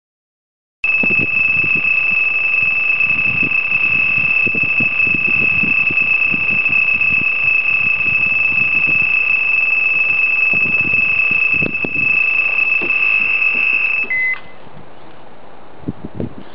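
Electronic carp bite alarm screaming in one unbroken high tone as a bat ray pulls line off fast on its run. The tone starts about a second in and cuts off suddenly with a short lower blip, leaving a faint hiss.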